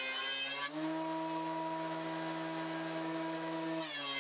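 DeWalt benchtop thickness planer running with a steady motor hum. About a second in, its pitch rises and the cutting noise fades as the planer runs free. Near the end the pitch drops back and the cutting noise returns as the next thin strip on its sled is fed in.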